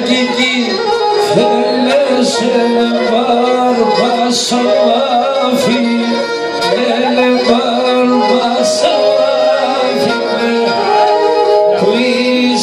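Live folk music played through a PA: a man singing into a microphone over sustained melodic accompaniment, with a regular percussion beat about once a second.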